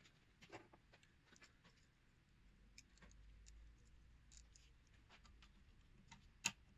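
Near silence with faint, scattered light clicks and taps from handling a rebuilt inner CV joint clamped in a vise, and one sharper click near the end.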